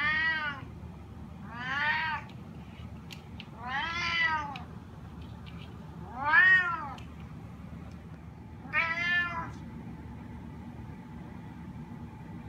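Bengal cat meowing five times, about two seconds apart, each call rising and then falling in pitch: insistent demand meows to be let outside.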